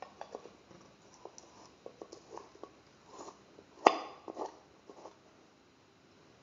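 Light clicks and taps of a spoon and spice containers being handled at a pressure cooker pot as chili powder goes in, with one sharper knock about four seconds in.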